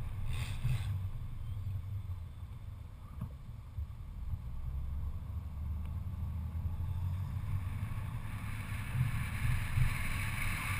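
BMW E34 driving along town streets, heard as a steady low rumble of engine and road noise with wind noise on the car-mounted camera; a hiss builds over the last few seconds as the car picks up speed on the open road.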